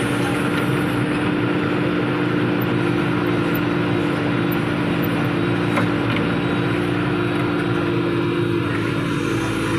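Heavy diesel machinery engine running steadily at a constant speed, with one faint click about six seconds in.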